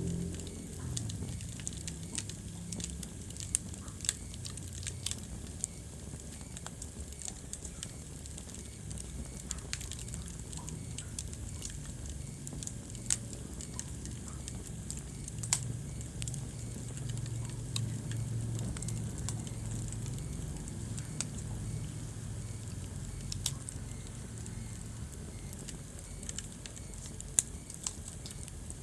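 Wood fire crackling in a fireplace: irregular sharp pops and snaps, a handful louder than the rest, over a low steady rumble of the flames.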